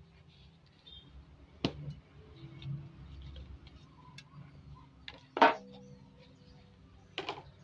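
Small plastic bonsai pot being squeezed and worked off a root-bound root ball: the plastic gives three sharp clicks and knocks among soft handling rustle. The loudest comes a little past halfway, as the root ball slips free.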